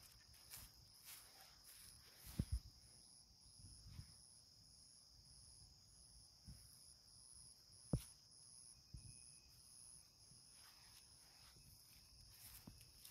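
Faint insects in near silence: a steady high drone with a higher chirp pulsing about twice a second. A few soft thumps come through, two a couple of seconds in and one about two-thirds of the way through.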